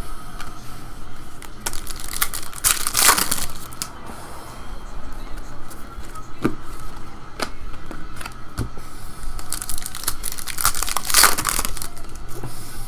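Trading-card pack wrappers being torn open and crinkled, in two longer stretches of rustling about two seconds in and again about ten seconds in, with scattered clicks and taps of cards being handled between them.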